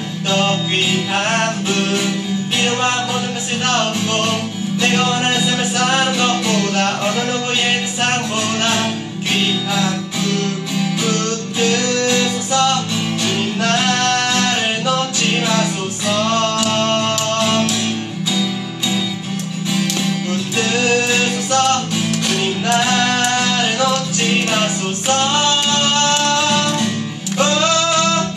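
A man singing a Korean gospel song to his own acoustic guitar strumming.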